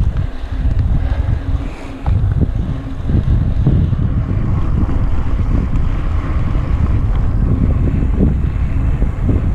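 Wind buffeting the microphone of a camera riding on a mountain bike, over a steady low rumble from the bike rolling along a dirt singletrack. The rumble dips briefly about two seconds in, then carries on louder.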